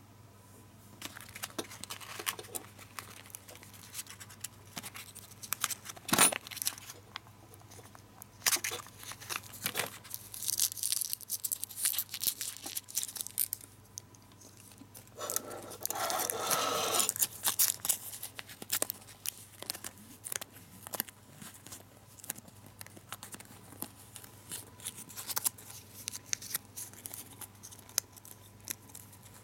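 Crinkling and rustling of a small foil-lined gum wrapper as it is pulled out, unwrapped and folded by hand, with scattered sharp clicks. About half way through there is a longer stretch of dense crinkling.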